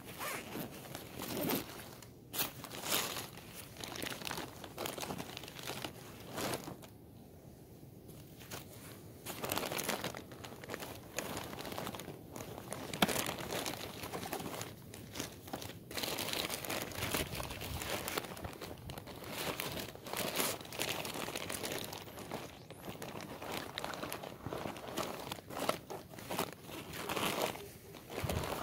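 Close rustling and crinkling of synthetic blaze-orange hunting clothing and pack fabric being handled right against the phone's microphone, with scattered bumps and a sharp click about halfway through.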